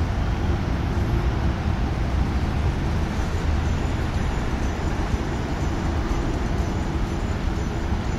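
Steady hum of city road traffic heard from high above a busy intersection: a constant low rumble of many cars and scooters, with no single vehicle standing out.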